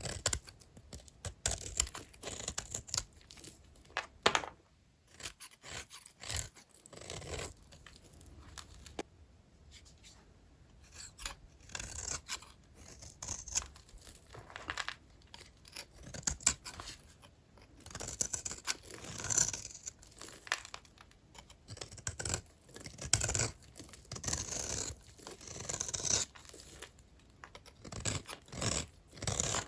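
Small bars of dry old hotel soap being cut with a blade: an irregular run of short, crisp scrapes and crunches with sharper clicks between them.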